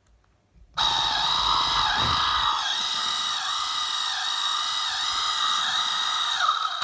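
Small electric drive motor of an RC skid steer whining through its gearbox, starting about a second in and stopping near the end, its lower tones dipping in pitch over and over. This is the weak motor, suspected of causing the ESC to fail, which runs slower and can be stalled by hand.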